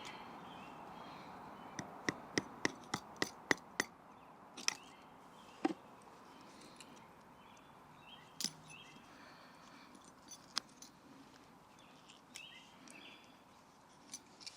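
A wooden baton striking the spine of a Victorinox Ranger Swiss Army knife blade, driving it through a piece of wood to split it. About eight quick sharp knocks come in a run, roughly four a second, then a few single knocks follow.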